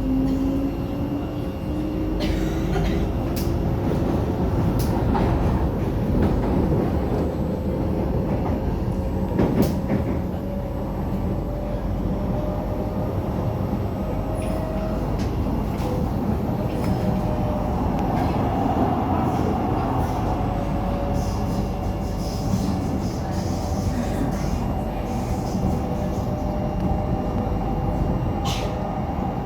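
C751B metro train running between stations, heard from inside the car: a steady rumble of wheels on the track with a motor whine that rises in pitch near the start, and a few sharp clicks along the way.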